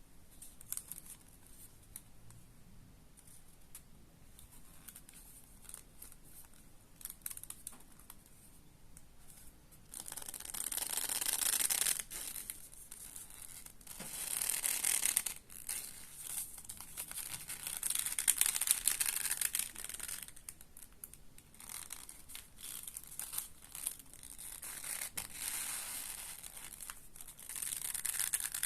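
Thick bull-hide leather belt creaking and crackling as it is worked by hand: faint scattered creaks at first, then several louder spells of a few seconds each, the sound of dense, good-quality leather.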